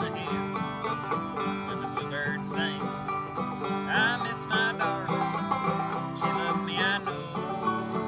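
Clawhammer banjo and acoustic guitar playing a bluegrass tune together, the banjo's picked notes over the guitar's steady strummed rhythm.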